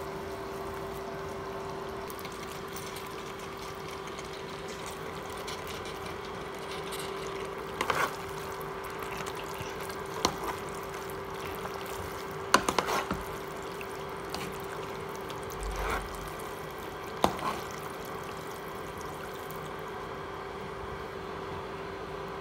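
Fettuccine being tossed with tongs in a creamy sauce in a nonstick frying pan: wet stirring, with a few sharp clicks of the tongs against the pan, over a steady hum.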